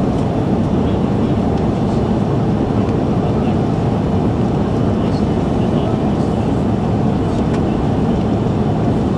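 Steady jet engine and airflow noise heard inside the cabin of an Airbus A330-300 in the climb after takeoff, from its Rolls-Royce Trent 700 turbofans. The noise is even and low-heavy, with no change in level.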